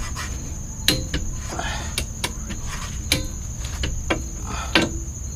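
Click-type torque wrench tightening the rear brake caliper bolts, giving sharp clicks at uneven intervals as each bolt reaches the set 25 lb-ft.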